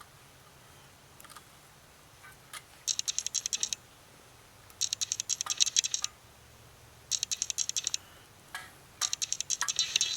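Metal camp cookware clinking: four short bursts of rapid light metallic clicks, each lasting about a second.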